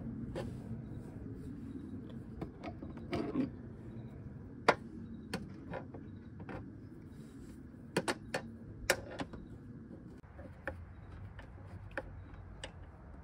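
Irregular light metallic clicks and taps as a hood-hinge bolt is worked in by hand and a socket and ratchet are handled against the hinge, with a sharper click about five seconds in and a cluster around eight to nine seconds.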